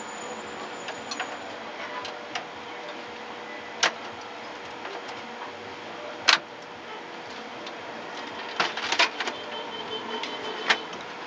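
Sharp clicks and knocks, a few seconds apart with a quick cluster near the end, from hands working on a desktop computer while a DDR3 RAM module is fitted, over a steady low hiss.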